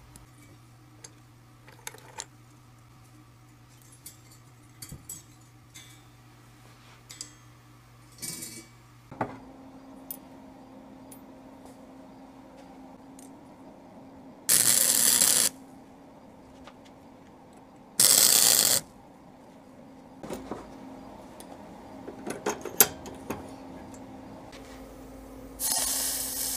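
Small metal parts and wire clicking and clinking as they are handled, then two short bursts of arc welding of about a second each over a steady low machine hum. Near the end a hot welded part is dunked in a bucket of water and sizzles as it is quenched.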